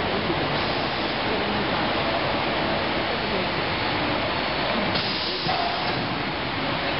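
Steady hissing machinery noise of a wooden-window production line's conveyor and handling plant running, with a short, louder hiss about five seconds in.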